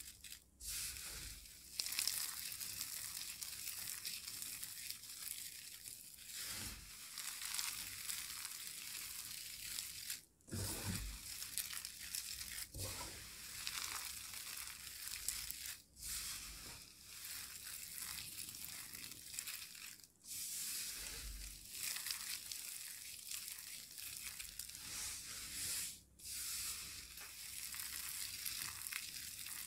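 Hands scooping and squeezing a heap of dry soap crumbs mixed with metallic foil tinsel and confetti, giving a continuous high crackling and crunching. It breaks off briefly a few times as the hands let go and dig in again.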